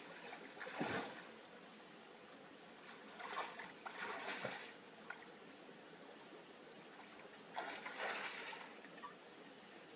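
Water splashing and sloshing as a person wades through a shallow stream, in three bursts: about a second in, around three to four and a half seconds, and near eight seconds. Between them is a faint, steady sound of flowing water.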